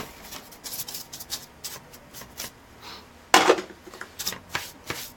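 Paintbrush bristles sweeping dust off the laptop's plastic parts in a run of short, quick brush strokes, with one louder bump about three and a half seconds in.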